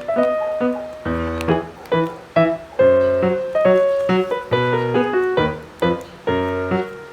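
Background piano music: a melody of struck notes over bass chords, each note fading after it is struck.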